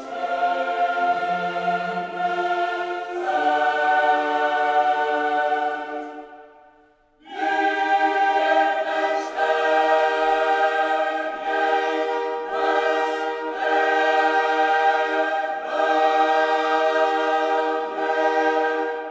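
Background music of choir voices singing long chords that change every few seconds. It fades out about six seconds in and comes back about a second later.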